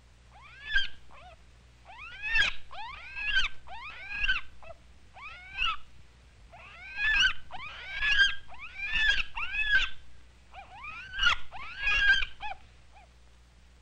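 A baby monkey crying in a series of short, high-pitched calls. Each call rises and then falls in pitch, and they come about once a second, with brief pauses around six seconds in and again near ten seconds.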